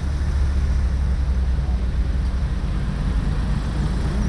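Slow-moving street traffic, with car engines passing close by in a steady low rumble.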